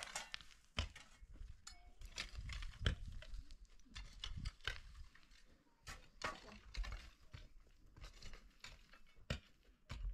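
Pickaxe digging in stony soil: irregular sharp knocks among crunching and scraping of earth and rock.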